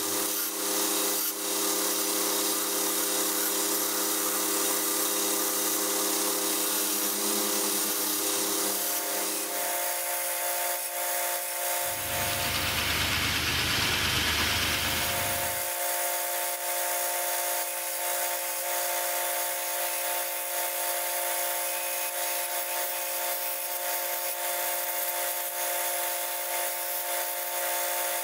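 Vertical belt grinder running steadily with a motor hum while a resin-stabilized cork handle scale is ground against the belt. For a few seconds in the middle the grinding turns to a heavier, lower rush.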